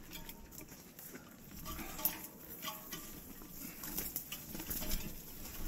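Mountain bike being pushed up a stony trail: irregular footsteps and scattered clicks and knocks from the bike over the stones.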